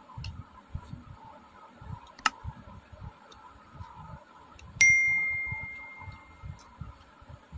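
Close-up eating sounds of rice being mixed and eaten by hand: soft chewing and mouth noises, with a sharp click a little over two seconds in. Near the middle comes a single bright metallic ding that rings out and fades over about two seconds.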